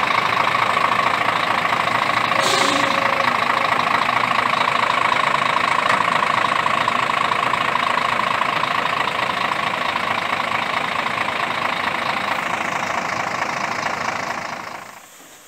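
Steady mechanical running noise with a constant high whine, dropping away about a second before the end.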